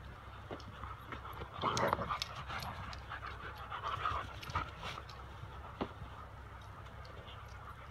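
German Shepherd dogs panting as they run and play, with a louder burst of noise about two seconds in.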